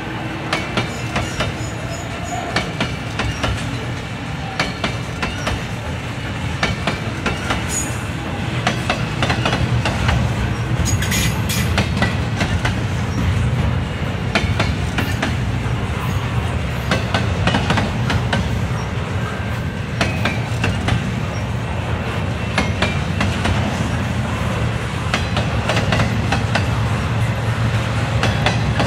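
Double-stack intermodal container train rolling slowly past: a steady rumble with irregular clicks and clanks from the wheels and cars, and short high squeals. Near the end, the low drone of a rear diesel locomotive grows louder as it approaches.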